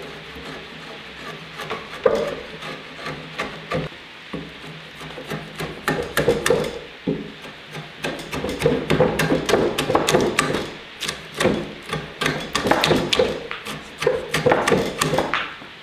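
Timber-framing slick pushed by hand, paring wood from the tenon of a large timber post: runs of short, sharp cutting and splitting cracks, busiest in the second half.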